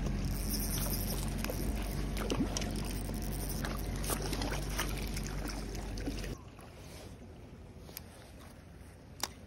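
A hooked trout splashing at the water's surface as it is reeled toward the landing net, over a steady low hum. About six seconds in, the sound drops suddenly to a quieter background with two sharp clicks near the end.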